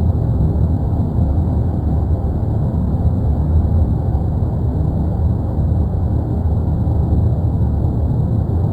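Steady low rumble of the erupting volcano, continuous and unbroken.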